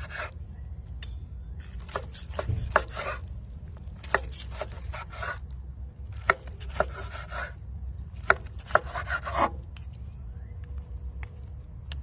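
A knife sawing through a rack of barbecued ribs on a wooden cutting board: four runs of rasping strokes, each about a second long, with sharp clicks as the blade meets the board.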